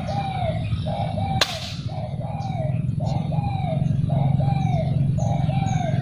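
Spotted dove coos repeating at an even pace, the dove call played from a lure-call recorder to draw doves in, with faint chirps of other birds. About one and a half seconds in, a single sharp crack with a short hissing tail: the PCP air rifle firing.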